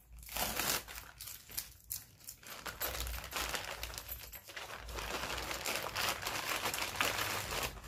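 Thin plastic bag crinkling and rustling continuously as hands pull it open and handle it.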